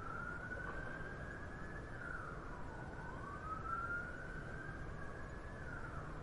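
Emergency vehicle siren wailing, its pitch rising slowly over about two seconds and then dropping quickly, twice, over a steady hum of city traffic.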